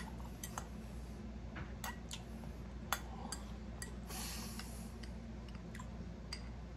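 A person chewing a mouthful of pulled pork, with scattered small clicks of a metal fork against a glass dish, the sharpest about three seconds in, over a steady low hum.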